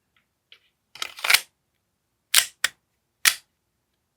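An AAP-01 gas blowback airsoft pistol being handled and fired. A rattling clack about a second in, then three sharp, separate mechanical clacks of the pistol cycling.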